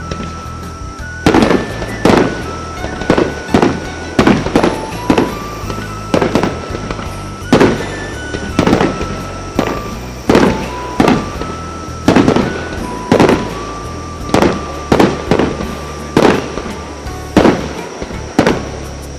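Aerial fireworks shells bursting in quick succession, roughly one to two booms a second and sometimes in clusters, over background music with a held melody.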